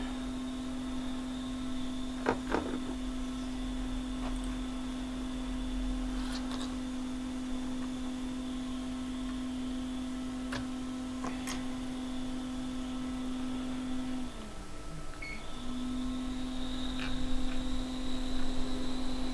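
Hakko FR-810B hot air rework station's blower running with a steady hum. About fourteen seconds in it cuts out with a short falling pitch, then starts again a second or so later. A few light clicks of tools are heard over it.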